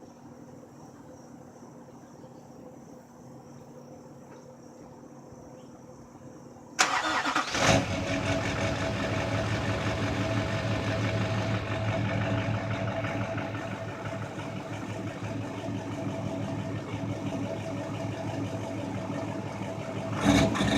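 Crickets chirping steadily, then about seven seconds in a car engine cranks and catches, and settles into a steady idle. A brief louder patch comes near the end.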